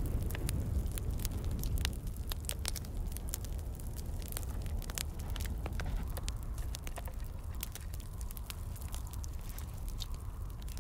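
Open wood fire of mixed desert scrap wood (palo verde, cholla, pinyon) crackling and popping with many scattered sharp snaps, burning up quickly just after lighting. Low wind rumble on the microphone runs underneath.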